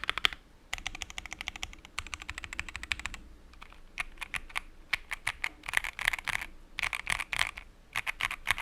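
Typing on a Keychron Q1 mechanical keyboard with Everglide Aquaking V3 linear switches, a polycarbonate plate and thick double-shot keycaps, damped with a silicone sheet and PE foam and no Tempest tape. Fast, even runs of keystrokes for the first three seconds, then looser clusters of keypresses.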